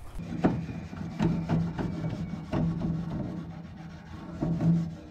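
Wire grill brush scraping back and forth across metal grill grates in a series of irregular strokes, cleaning the grates over hot charcoal before cooking.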